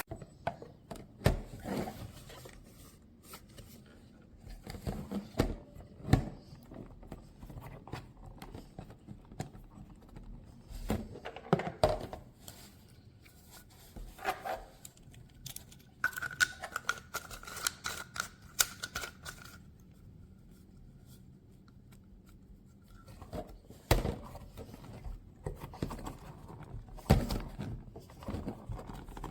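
Scattered clicks and knocks of objects being handled in a small, echoing room, with a faint steady high tone for a few seconds past the middle.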